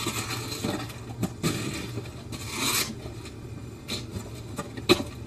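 Cardboard robot costume and props scraping and rubbing as the wearer moves, with scattered knocks, a longer rasping scrape about halfway through and a sharp click near the end.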